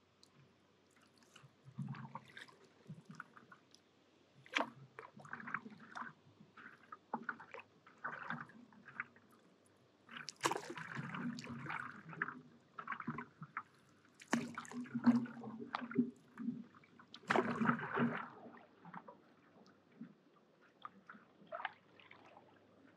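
Paddleboard paddle working through calm lake water: small splashes, drips and gurgles, with three heavier strokes in the second half, a few seconds apart.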